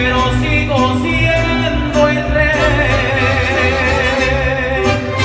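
Mariachi band playing the closing bars of a ranchera: violins over a steady bass, with a man's voice holding long notes with vibrato.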